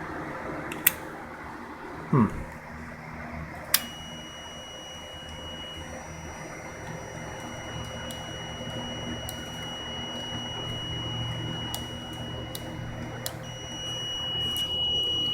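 Multimeter continuity beeper sounding one steady high tone, starting with a click about four seconds in, breaking off briefly near the end and coming back: the motorcycle's neutral switch is closed, a complete circuit. Before it come a sharp click and a short falling sound about two seconds in, over a low steady hum.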